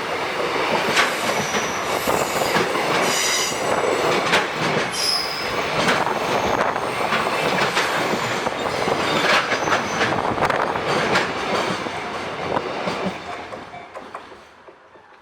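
Freight train rolling past on the rails, wheels clacking over rail joints, with brief high-pitched wheel squeal a few seconds in. The noise dies away near the end.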